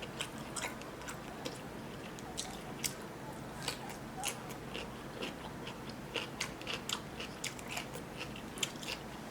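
A person chewing food, with irregular short crunches and mouth clicks.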